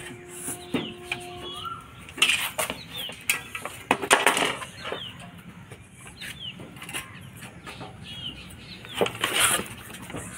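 A stick scraping and knocking against a concrete floor and a metal door frame as it probes a hole, in several short bursts, the loudest about two, four and nine seconds in. Birds chirp in short notes throughout.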